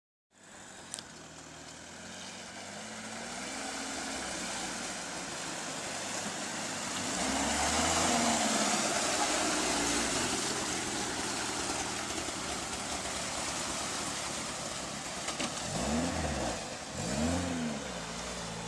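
Car engine running under way with steady tyre and road noise; the engine revs up and back down once in the middle, then twice in quick succession near the end.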